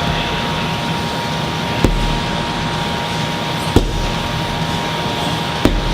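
Sledgehammer thrown down onto a large tire, three blows about two seconds apart, each a short thud, over a steady fan hum.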